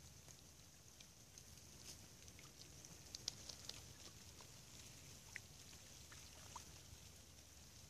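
Near silence of a snowfall: a faint steady hiss with scattered light ticks of falling snow, a brief cluster of sharper ticks a little over three seconds in.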